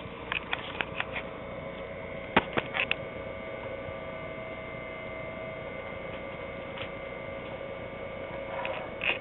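Steady electrical hum and whine of two bench power supplies running, several steady tones at once. Over it come a handful of sharp clicks and knocks in the first three seconds, the loudest about two and a half seconds in, and one more near the end.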